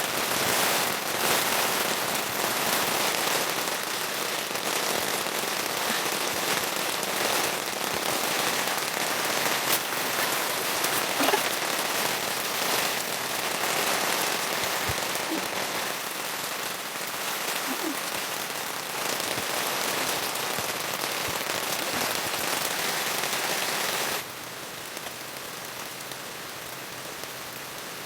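Steady heavy rain falling on surfaces, with many separate drop ticks through the hiss. About 24 seconds in it drops suddenly to a softer level.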